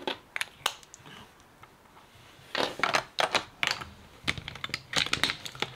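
Lipstick tube and cap handled on a tabletop: irregular light clicks and taps, a couple early on and a denser run from about two and a half seconds in until near the end.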